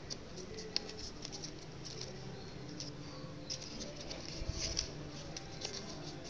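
Sheet of paper being folded and pinched into shape by hand: scattered soft crinkles and rustles, a little louder about four and a half seconds in, over a low steady hum.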